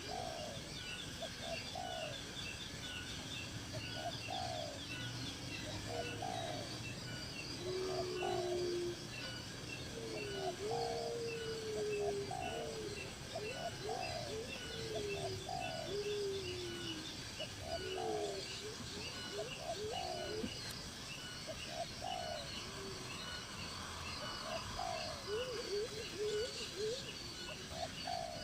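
Birds calling outdoors: a short call repeats about every second and a half, joined in the middle by lower sliding whistled notes. A rapid high chirping runs underneath throughout.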